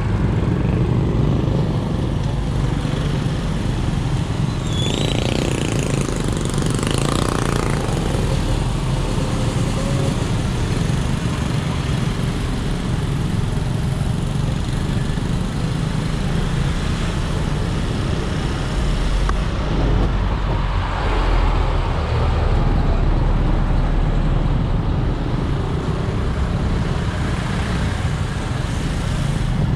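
Motorcycle engine running at low speed while riding slowly through congested traffic, with the steady rumble of surrounding cars and other vehicles.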